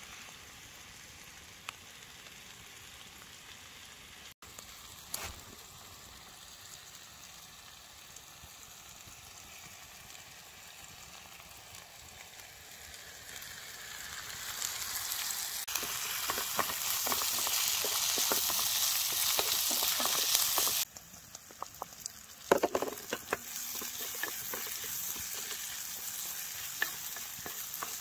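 Steady sizzling hiss that swells over a few seconds into a loud crackling sizzle, cuts off abruptly, then gives way to a few sharp clicks and a quieter sizzle.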